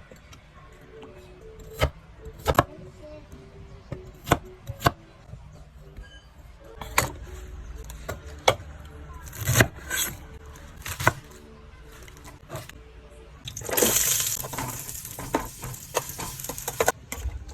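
Kitchen work while cooking: scattered sharp knocks and clinks of utensils and dishware, with a brief rush of running water about fourteen seconds in.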